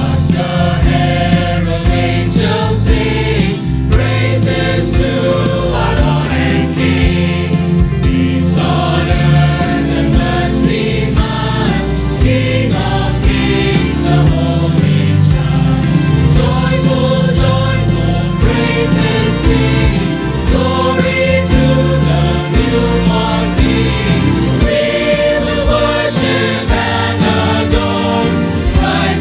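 Choir singing a Christmas cantata song, with instrumental accompaniment holding a steady bass line under the voices.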